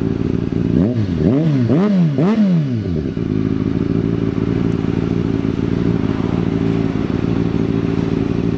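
Kawasaki ZX-6R 636's inline-four engine idling through an Akrapovic aftermarket exhaust. About a second in, it is blipped three times in quick succession, each rev rising and falling, before it settles back to a steady idle.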